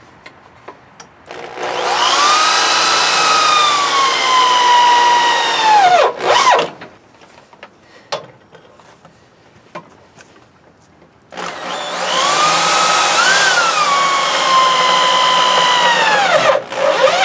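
Cordless drill driving self-tapping screws into the dump cart: two long runs of motor whine, the pitch sinking as each screw bites in. Each run is followed by a couple of short bursts as the screw is snugged down.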